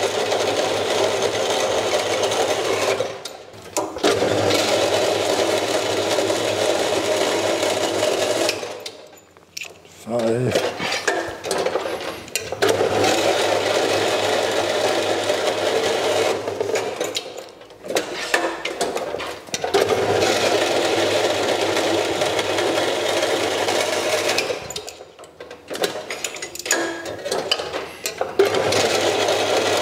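Metal-cutting bandsaw running and sawing through quarter-inch annealed bearing-steel bar, cut after cut, with a coarse blade that tends to catch on the last tooth as it breaks through. The sound drops away briefly four times, about every seven or eight seconds, as each blank is cut off and the bar moved along.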